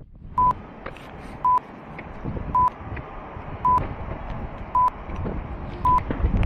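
A short, single-pitched beep repeating evenly, a little more than once a second, six times, over a low background rumble.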